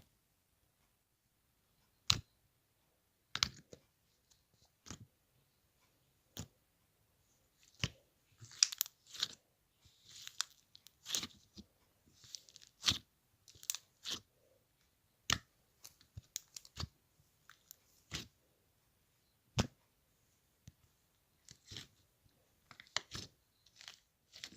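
Irregular sharp taps and clicks, a few seconds apart, with crinkly, crunchy rustling in between, most of it around the middle and again near the end.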